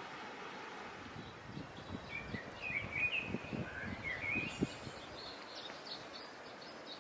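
Small birds chirping in quick, short calls over a steady hum of outdoor background noise. A run of low, dull thumps sounds under the calls in the middle.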